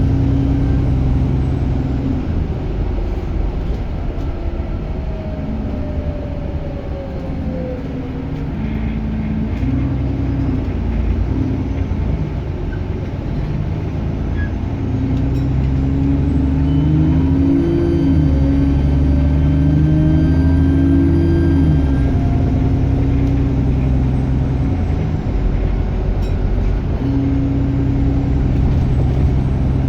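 Bus diesel engine running under changing load, with a high turbocharger whine that falls away over the first several seconds, climbs steadily from about nine seconds in, drops sharply at about twenty-two seconds as the engine note changes, then rises again near the end.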